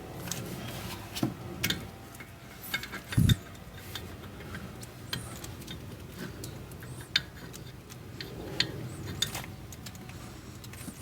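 Scattered light metallic clicks and taps of tools and brake parts being handled, with one heavier dull knock about three seconds in.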